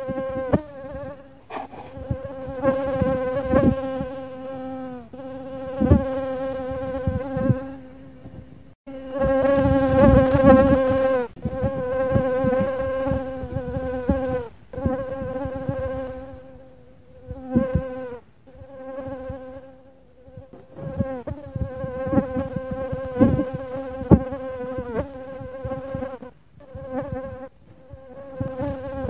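Mosquito wings whining in flight: a buzzing tone that swells and fades again and again as the insect passes close, wavering a little in pitch. It breaks off briefly a few times.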